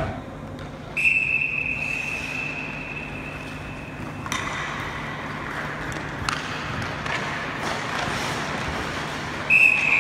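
Ice rink sound with a steady low hum, a high steady tone lasting about three seconds starting about a second in, and a couple of sharp knocks a few seconds in, with the tone returning near the end.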